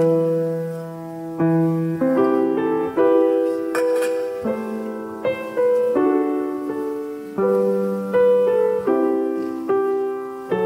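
Solo piano playing slow, quiet sacred music, a chord struck about every second and left to ring and fade.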